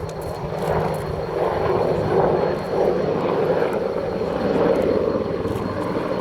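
Westland WAH-64D Apache attack helicopter flying past, a steady rushing of rotor and turbine noise that swells about a second in and then holds.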